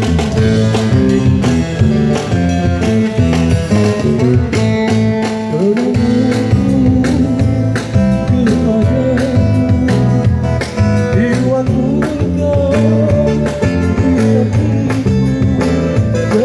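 Street buskers performing live: a singer with a smooth voice over steadily strummed guitar.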